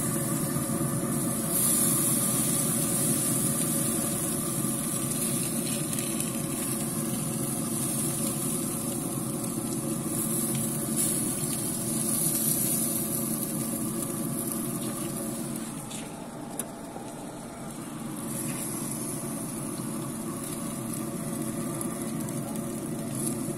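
Steady mechanical hum of the pellet grill's fan running, with a high sizzle from the steaks on the grate and a few light clicks of tongs.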